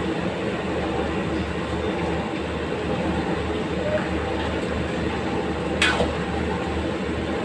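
Gas range burner running on a high flame, a steady low rush, while a metal ladle stirs curry in a steel wok, with one sharp knock of the ladle against the pan a little before six seconds in.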